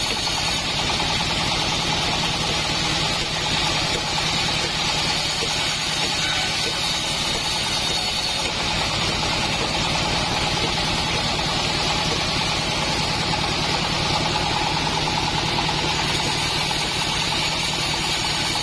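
Engine-driven bandsaw mill running steadily, its engine giving an even, rapid pulse under a constant higher hiss.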